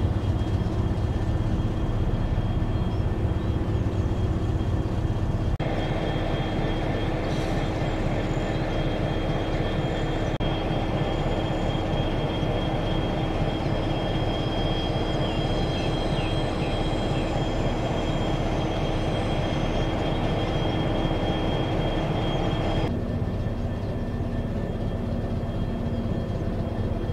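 Diesel locomotive engines running with a steady low rumble, across edited shots. A steady high whine joins about six seconds in and cuts out about 23 seconds in.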